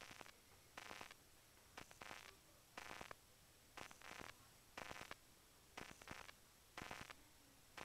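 Small dog crunching dry kibble, faint crunches coming about once a second.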